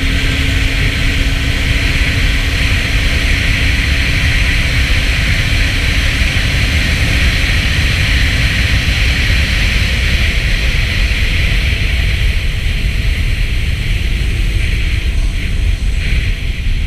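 Snowmobile running steadily at speed, heard mostly as rushing wind noise on the microphone over a low rumble.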